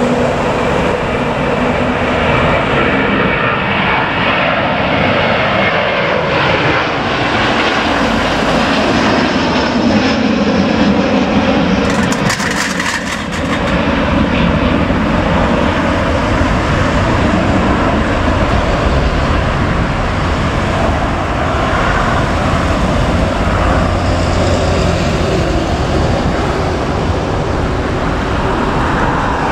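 Delta Airbus A330-200's twin jet engines at take-off thrust, a loud steady roar as the airliner lifts off and climbs away.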